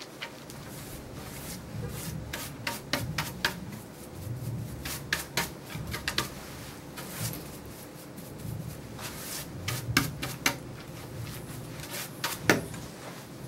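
Hand brush sweeping clipped dog hair across a grooming table: irregular scrubbing strokes with many short sharp clicks and taps among them.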